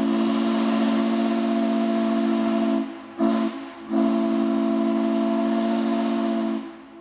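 Steam whistle on Cass Scenic Railroad Shay No. 5 blowing a chord of several tones: a long blast, one short toot about three seconds in, then a second long blast that cuts off near the end.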